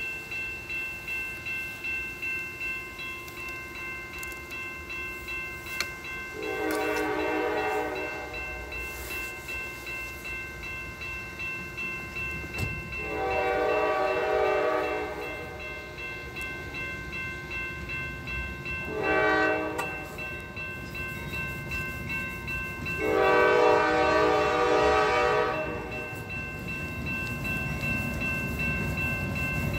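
CSX locomotive air horn blowing the grade-crossing signal as the locomotives approach: two long blasts, a short one, then a long one. A crossing bell rings steadily underneath.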